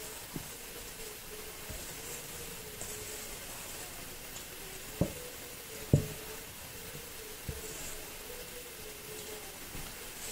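A spatula stirring ingredients in a stainless steel mixing bowl, knocking against the metal now and then. Two sharp knocks about five and six seconds in are the loudest.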